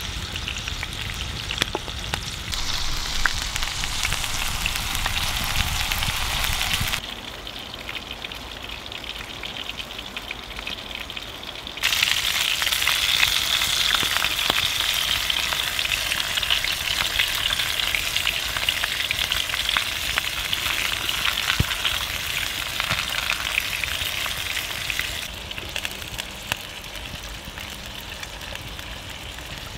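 Minced goose burger patty frying in a cast iron pan over an open wood fire: a steady, crackly sizzle. The sizzle turns louder about twelve seconds in, as a slice of bread is laid in the pan to toast in the fat.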